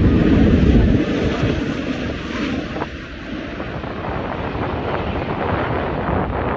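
Strong wind buffeting the microphone, with a low jet-aircraft rumble that is heaviest in the first second and then eases off.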